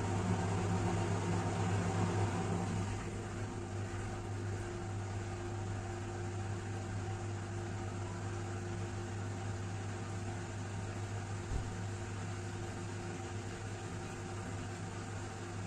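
Washing machine running with a steady motor hum and faint steady tones; it drops a little in level about three seconds in, and a single click sounds near the end.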